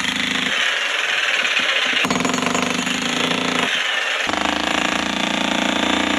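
Corded electric demolition hammer breaking up stone floor paving, hammering continuously at a fast rate. Its low thud thins out briefly twice, about half a second in and again around four seconds.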